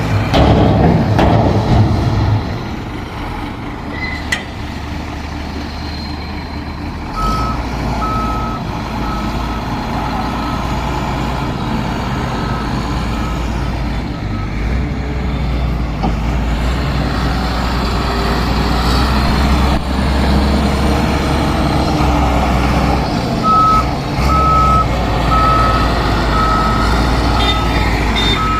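Heavy diesel construction machinery running steadily, louder for the first couple of seconds, with a reversing alarm beeping about one and a half times a second, briefly about seven seconds in and again near the end.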